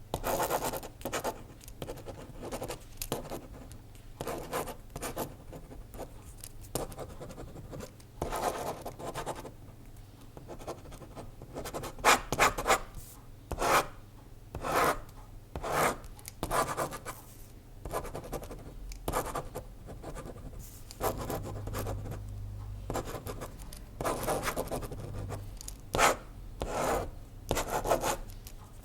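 Pen or pencil writing on paper: irregular scratching strokes of varying length, some quick and some drawn out over about a second.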